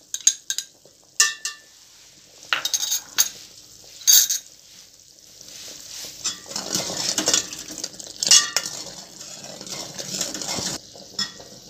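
Metal spoon and ladle clinking against a glass bowl and a steel saucepan: a few sharp clinks, some briefly ringing, in the first four seconds, then the ladle stirring and scraping around the pan of boiling yogurt from about six seconds in, with more clinks.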